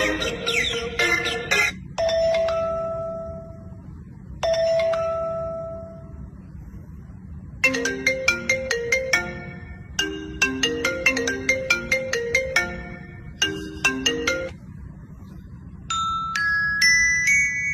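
Phone ringtones played one after another. A short melody ends, then two single chime notes ring out, then a fast marimba-like ringtone melody plays in phrases, and a bell-like melody begins near the end.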